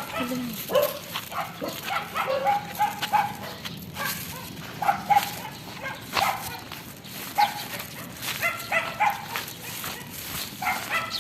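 Dog barking repeatedly, many short barks and yips in quick succession.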